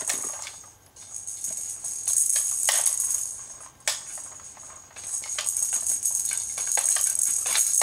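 A baby's rattle toy shaken in spells, a bright jingling shake with sharp clicks that dies down about a second in and again around four and a half seconds in before picking up.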